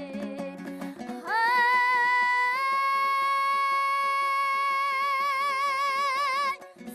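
A singer holds one long, high, sung note in a Kazakh folk song. The voice slides up into it about a second in, steps slightly higher, and its vibrato widens before it stops near the end. A plucked string accompaniment plays before and after the note.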